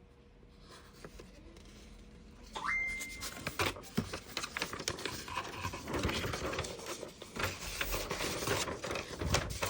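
Miniature-kit parts being handled, scratched and scraped by hand, with dense small clicks and rustles that start about a quarter of the way in and carry on. A brief rising, high tone sounds just as the handling begins.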